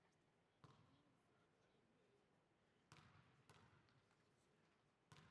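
Basketball bounced on a hardwood gym floor: four faint thuds with a short echo, one about a second in, two close together around three seconds, and one near the end.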